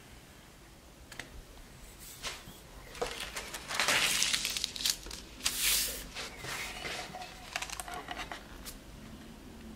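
A sheet of baking paper rustling and crinkling as it is laid over a sheet of tempered chocolate, loudest about four seconds in and again near six seconds, with lighter rustles and small ticks after.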